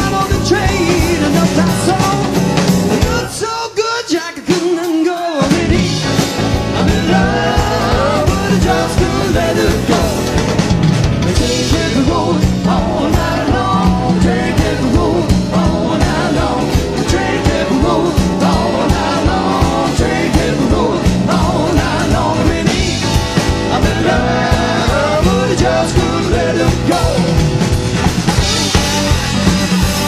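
Live rock-and-roll trio of electric guitar, drum kit and keyboard bass playing with singing. About four seconds in the drums and bass drop out for a moment, then the full band comes back in.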